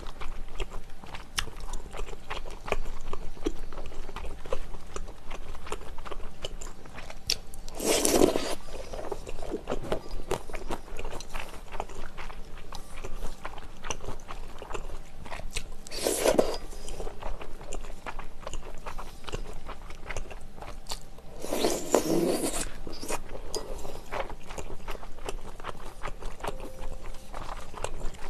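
Close-up eating sounds of chewy wide Chinese glass noodles in spicy sauce: steady wet chewing and mouth clicks, with three louder slurps spread through.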